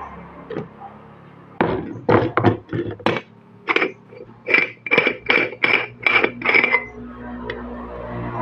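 Aluminium moka pot parts being handled and knocked together: a few sharp knocks, then a run of about ten evenly spaced ringing metallic taps that stop near the end.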